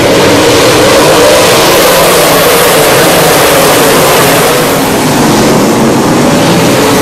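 A pack of dirt late model race cars with V8 engines accelerating through a turn, a loud, dense blend of many engines at once. The sound eases slightly about five seconds in as most of the field moves on.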